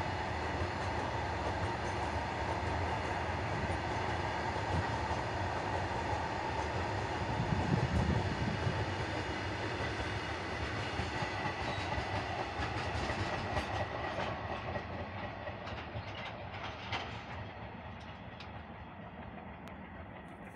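A goods train's freight wagons rolling past on the rails: a steady rumble and rattle of wheels on track, with a few sharp wheel clicks, fading away over the last several seconds as the train moves off.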